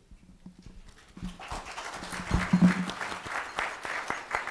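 Applause, many hands clapping, starting about a second in and holding steady.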